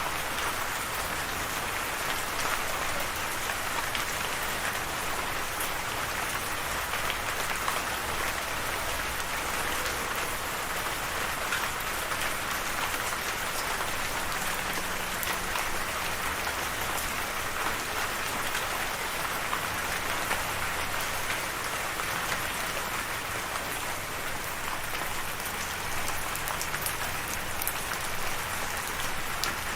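Steady rain falling: an even hiss of water with many individual drops ticking through it, unchanging throughout.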